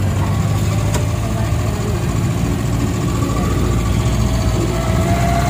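Angkot minibus engine running, heard from inside the passenger cabin as a steady low hum, with a faint whine that rises slightly near the end and a single click about a second in.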